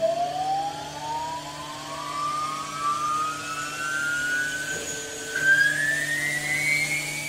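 Jet turbine engine spooling up: a whine rising steadily in pitch over a steady low hum, with a brief break about five seconds in, after which it comes back louder and keeps climbing.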